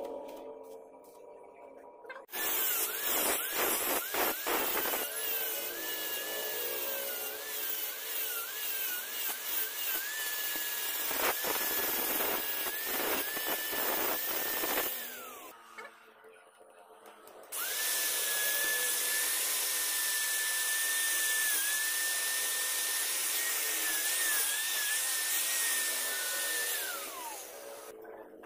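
Electric angle grinder grinding welded joints on stainless steel tube, running in two long spells with a high, wavering motor whine under the grinding noise. Each spell ends with the whine dropping away as the disc spins down.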